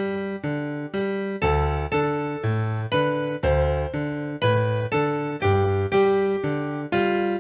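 Instrumental keyboard music: piano-like notes and chords struck in a steady rhythm, about two a second, each fading before the next.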